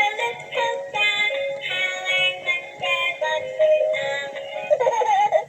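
Electronic melody with synthetic-sounding singing, a run of short pitched notes. About five seconds in, a wavering, voice-like sound begins.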